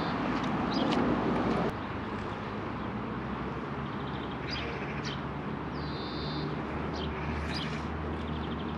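A BMX bike rolling away over wet ground close by for the first second and a half or so, then a steady low hum of distant traffic with a few short bird chirps.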